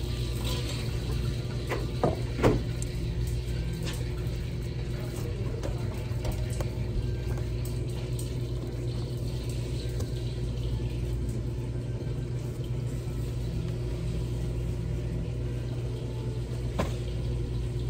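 Steady low background hum, with a few sharp knocks of a knife and tuna loin blocks on a cutting board: two close together about two seconds in and one near the end.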